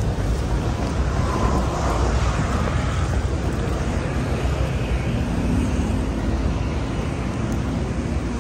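Steady, rumbling background noise, heaviest in the deep low end, with no distinct single event.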